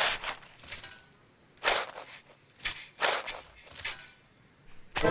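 Cartoon sound effects of a shovel scooping and tossing snow: about seven short scrapes, roughly one a second.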